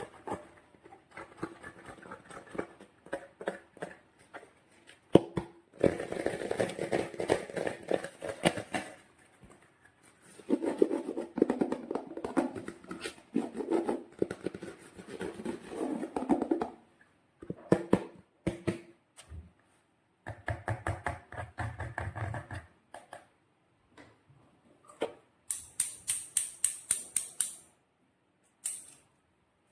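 Hands working slime, squishing and stretching it: bursts of sticky clicking and crackling that come and go every few seconds, then a quick run of sharp, evenly spaced clicks near the end.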